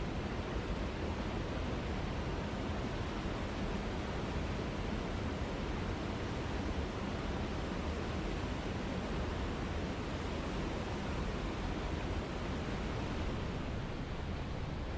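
Waterfall: a steady rush of falling water, even throughout.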